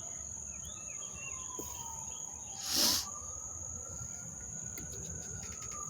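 Steady high-pitched chirring of insects, with a few short bird chirps in the first half. A faint siren wails slowly down and up behind it, and a brief rustling whoosh comes about three seconds in.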